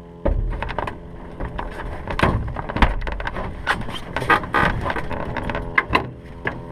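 Irregular clunks, clicks and rustling from someone climbing into a light aircraft's cockpit and gripping the canopy frame, starting suddenly about a quarter second in. A steady engine hum runs underneath.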